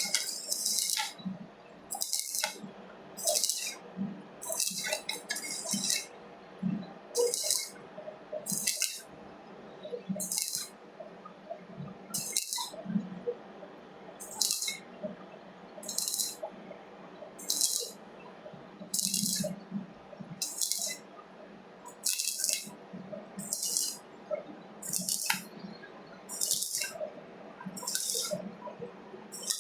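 Stick-welding arc crackling on thin steel in short bursts of under a second, about every one and a half seconds: the arc is struck and broken again and again in a stitch pattern.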